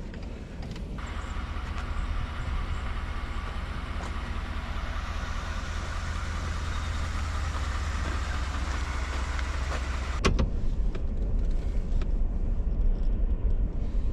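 Vehicle driving, heard from inside the cabin: a steady low engine and road rumble. A hissing noise comes in about a second in and stops after a sharp knock about ten seconds in.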